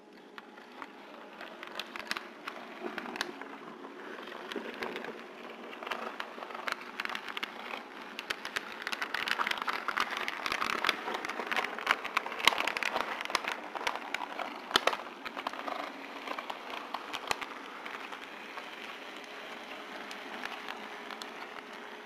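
HO-scale model train rolling along its track, heard from a small camera riding on a flat car: a steady rattle with many irregular sharp clicks from the wheels on the rails. It grows louder toward the middle and eases off near the end.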